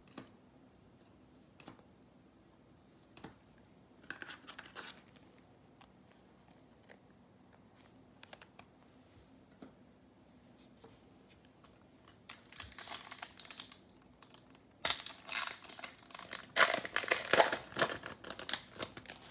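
A few faint rustles and clicks, then the plastic wrapper of a 2021 Bowman baseball card pack crinkling and being torn open. This is loudest over the last four seconds or so.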